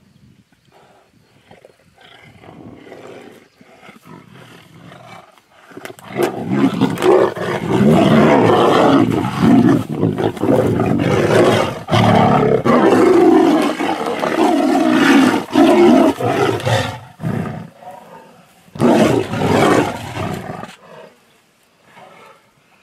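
Two tigers fighting, snarling and roaring. Low growls for the first few seconds, then loud, continuous snarling from about six seconds in until around seventeen seconds, with one more loud burst near the end.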